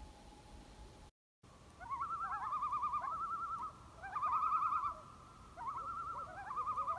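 Common loons giving tremolo calls: fast, wavering calls with more than one voice overlapping, coming in three runs starting about two seconds in.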